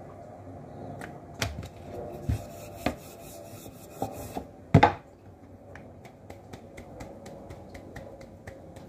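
Hands patting and slapping a soft, stuffed roti dough between the palms, giving soft slaps at irregular intervals with rubbing in between. A louder knock comes just under five seconds in.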